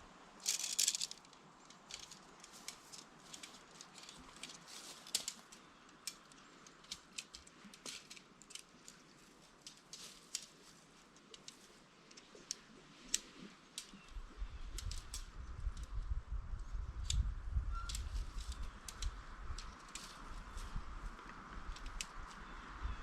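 Camping gear and tent parts being handled: scattered light clicks, rattles and rustles, with wind buffeting the microphone from about two thirds of the way in.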